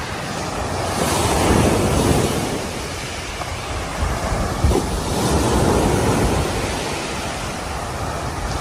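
Surf washing onto a sandy beach, with wind rumbling on the microphone; the wash swells louder twice.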